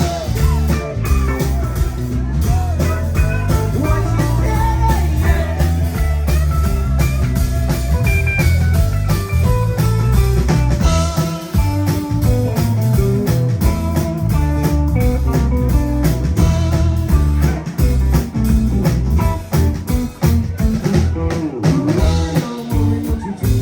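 A live rock band playing a bluesy song, with bass, drums and guitar lines throughout.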